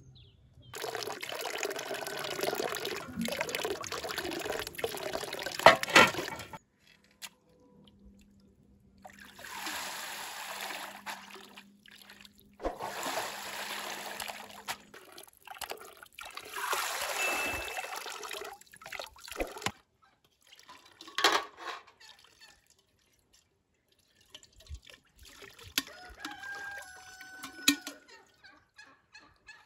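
Water pouring and splashing into a stone basin as a metal bowl is rinsed. It comes in four spells of a few seconds each, then a few short splashes and knocks near the end.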